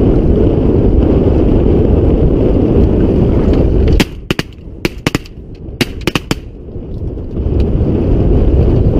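Strong wind buffeting the microphone, then a rapid volley of about eight shotgun shots fired by several hunters within two seconds. The wind noise builds back up after the shooting.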